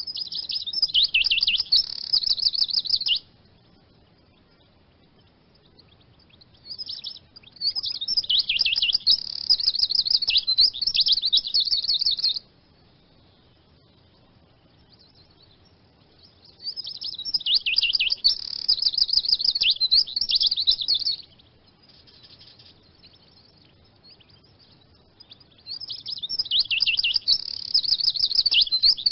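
Eurasian siskin singing: four bouts of rapid, high twittering song, each a few seconds long, with pauses of a few seconds between them; the last bout is still going at the end.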